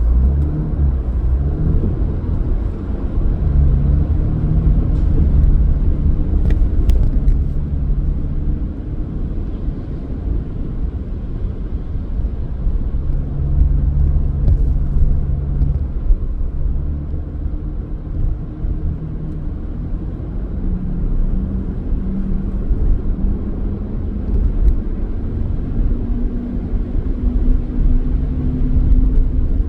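Car driving: a steady low road rumble with the engine hum shifting in pitch now and then.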